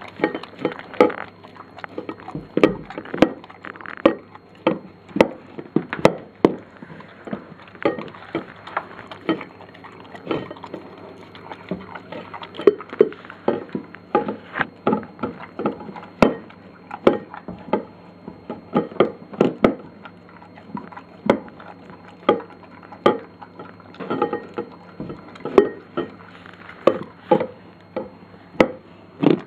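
Flat-coated retriever eating a dog-food cake from a glass plate on the floor: wet chewing and licking, with teeth and tongue clicking against the plate, irregularly about two or three times a second.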